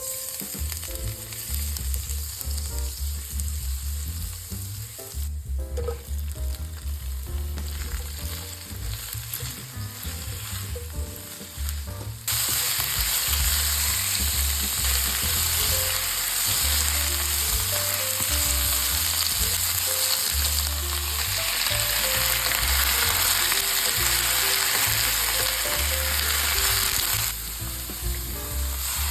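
Tofu and bok choy sizzling as they pan-fry, a steady hiss that turns much louder about twelve seconds in and eases back near the end.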